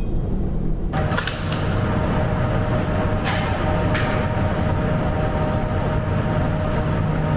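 Steady mechanical hum with a few faint steady tones, starting abruptly about a second in, with several light clicks shortly after and two more a few seconds later as the bolt-action rifle is handled in the aim.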